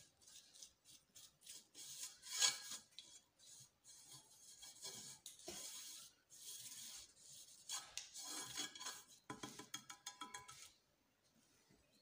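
Napkin wiping olive oil around the inside of a dark metal frying pan: repeated dry rubbing strokes as the pan is greased before the batter goes in. The strokes stop about a second before the end.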